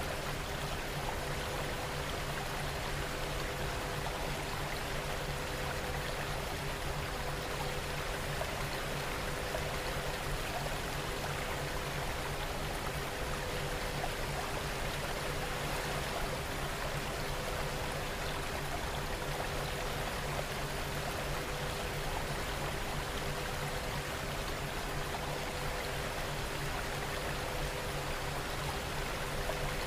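Steady recorded rain: an even, unbroken hiss of falling rain with faint steady hum tones underneath.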